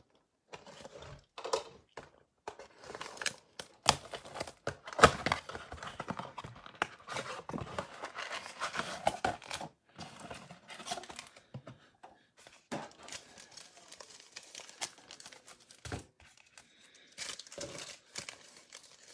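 A trading-card blaster box being opened by hand: its plastic wrap and the card packs' wrappers crinkling and tearing, with cardboard rustling and irregular sharp snaps and taps. The loudest rip comes about five seconds in.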